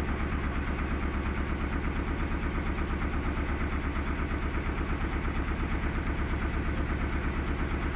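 Tour boat's engine running at a steady speed, with a fast, even pulse in its beat.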